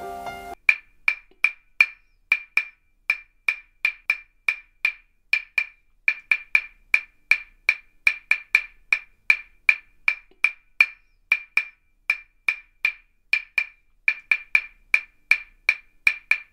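A long series of sharp, identical wood-block-like clicks, all at one high pitch, about three a second in an uneven rhythm. A short piano passage stops about half a second in, just as the clicks begin.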